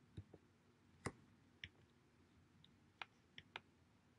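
Faint, scattered clicks of a computer mouse, about eight in four seconds, against near silence.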